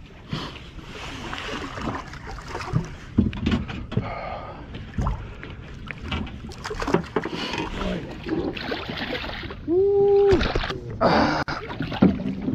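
Water splashing and slapping beside a boat hull, with scattered knocks and scrapes from rod, line and hands as a hooked fish is brought alongside and grabbed. A short held voice-like tone sounds about ten seconds in.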